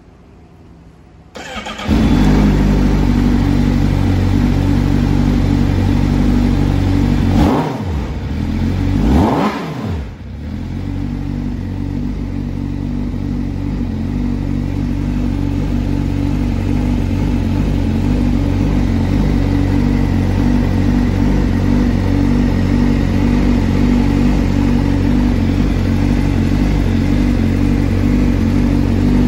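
Honda CBR1000RR-R SP's inline-four engine is started: a brief crank, then it catches about two seconds in and settles into a steady idle. Around a third of the way through, the throttle is blipped twice, each rev rising and falling quickly, before the engine returns to idle.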